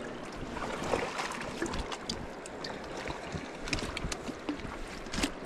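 Rushing river water, with scattered small splashes and knocks close to the microphone.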